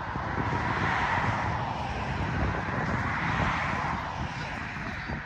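Aircraft passing overhead: a rushing noise that swells about a second in and fades near the end.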